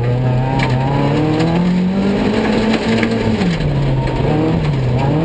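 Dirt-track race car's engine heard from inside the cockpit, revs climbing for about three seconds, falling away sharply, then climbing again near the end.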